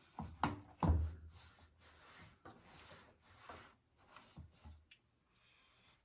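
A cloth rag rubbing and wiping inside the drain-filter housing of a front-load washing machine, cleaning out dirt. Two knocks come about half a second and a second in, then a run of short wiping strokes that stops about five seconds in.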